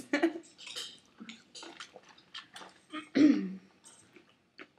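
Wet chewing and mouth noises of someone eating a burger, with scattered small clicks and smacks, and one short vocal sound a little past three seconds.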